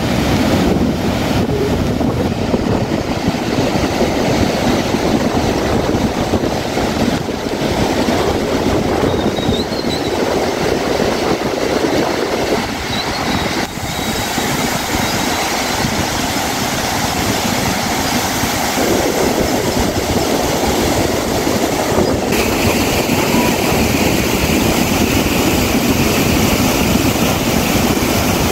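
Floodwater rushing steadily over a stepped concrete weir, a loud continuous noise whose tone shifts slightly a few times.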